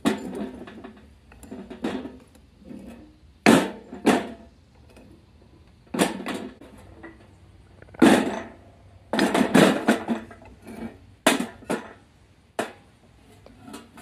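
Irregular knocks and clanks of hard metal pieces being handled and struck together, about a dozen of them, some ringing briefly.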